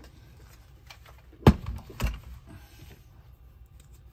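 Two knocks about half a second apart, a cordless reciprocating saw fitted with a speed clamp being set down on the workbench, with a few light handling clicks as the small paint bottle is picked up.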